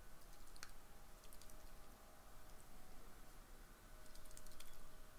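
Faint, scattered small clicks and light taps of small objects being handled on a desk, over a quiet room background.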